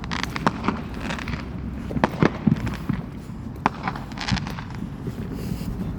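Fireworks going off: a scattered string of sharp cracks and pops, loudest about two seconds in, over a steady low rumble.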